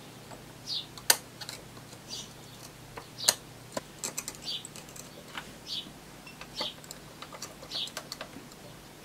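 Irregular small clicks and short scratchy scrapes as a smashed gas-discharge display and its foam are worked loose by hand from a multimeter's front panel. Sharper clicks stand out about a second in and just after three seconds.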